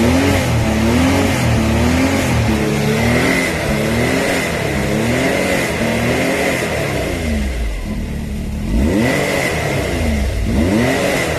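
Can-Am Maverick X3 Turbo RR's turbocharged three-cylinder engine revved in neutral and held around the 5,000 rpm zone, its pitch swinging up and down repeatedly. It drops back about eight seconds in, then revs up again. The CVT clutch rattle behind the seat is there but only slight on this 2020 model.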